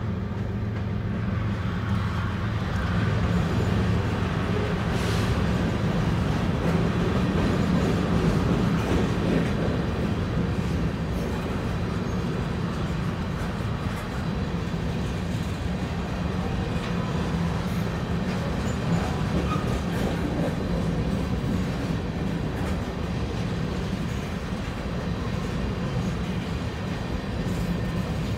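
A freight train of covered hopper cars rolling past: steel wheels running on the rails in a steady, continuous rumble.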